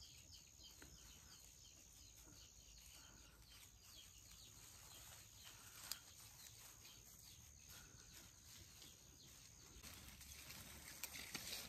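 Near silence with faint, rapidly repeated chirping and a steady thin high whine; near the end, leaves and grass rustle close by.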